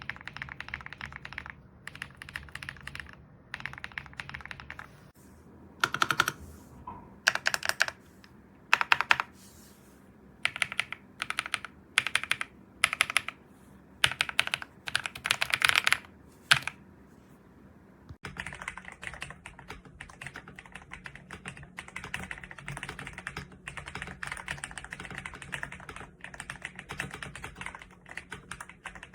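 Typing on an EPOMAKER Ajazz AK820 Pro gasket-mounted mechanical keyboard fitted with lubed Ajazz Gift switches. Short runs of keystrokes come first, then louder separate bursts of strokes, and from about halfway through a steady stream of fast continuous typing.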